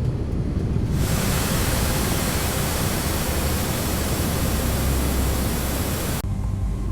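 Pressure washer spraying water: a loud, even hiss that starts abruptly about a second in and cuts off abruptly near the end, over a low steady rumble.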